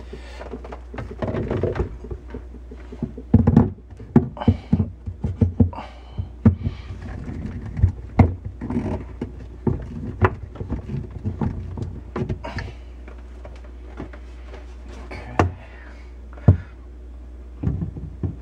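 Plastic filter cartridges of an A.O. Smith AO-US-RO-4000 reverse osmosis system being handled and twisted into their manifold: a run of hard plastic knocks, clicks and scrapes, densest through the middle, over a steady low hum.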